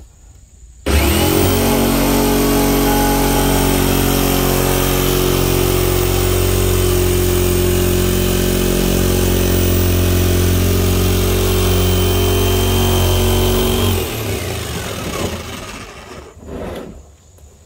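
Corded jigsaw starting up about a second in and running steadily as its blade cuts through the plastic wall of a 55-gallon barrel. The saw cuts off near the end and winds down.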